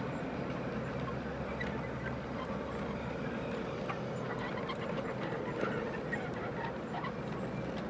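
G-scale model grain hopper cars rolling along outdoor track: a steady rumble of wheels on rail, with irregular clicks and clatter over the rail joints that are loudest in the first three seconds.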